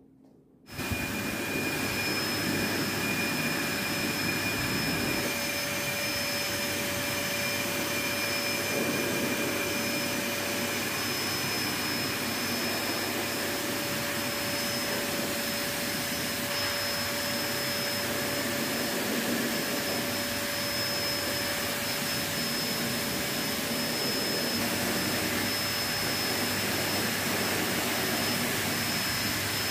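Electric blow dryer running steadily on a husky's damp coat after a bath: a constant rush of air with a steady whine, starting abruptly just under a second in.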